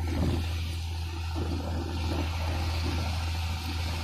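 Small fishing boat's engine running with a steady low drone, over the rush of churning water in its wake.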